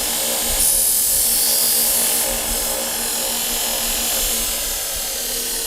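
Belt sharpener motor running with a 120-grit belt over a soft contact wheel as a knife blade is ground against it: a steady hum with a hissing grind that is strongest for the first two seconds and then eases. The side of the blade is being thinned, not yet the edge.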